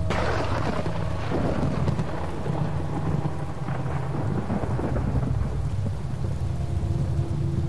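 A thunderclap cracks suddenly at the start and rumbles away over a couple of seconds, with further crackles of thunder about a second and four seconds in, over steady rain. A low steady drone runs underneath.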